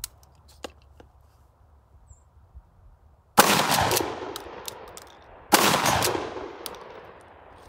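Two 12-gauge shots from a Mossberg 590S pump-action shotgun, a little over two seconds apart, with the pump worked in between. Each blast is followed by an echo that fades over about two seconds.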